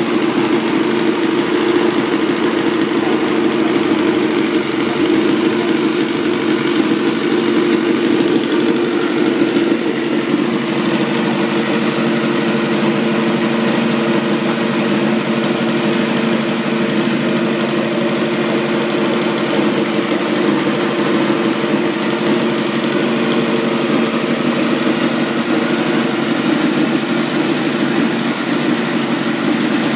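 Honda Jade 250's inline-four engine idling steadily through an aftermarket aluminium silencer.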